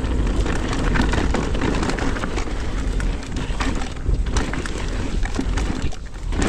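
Riding noise from an e-mountain bike descending a rough trail: tyres crackling over dirt and roots with a dense scatter of small clicks and rattles from the bike, over a steady low wind rumble on the microphone. The rider hears this rattling as still present but much reduced after the rear shock was swapped.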